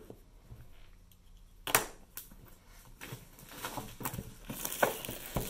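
Cardboard board-game box being handled and opened on a tabletop: a sharp knock about a second and a half in, then scattered clicks and scrapes, with plastic wrap crinkling building up near the end.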